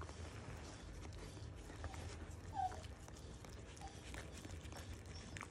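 A Jack Russell terrier whimpering briefly about two and a half seconds in, with a fainter whimper about a second later, over soft rustling on the bedding.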